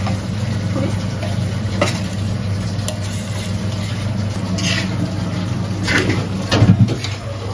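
A steel spoon scraping crushed nuts and raisins off a steel plate into a steel pan of roasting flour and ghee, with scattered metal clinks, then a ladle stirring in the pan with the loudest clatter near the end. A steady low hum runs underneath.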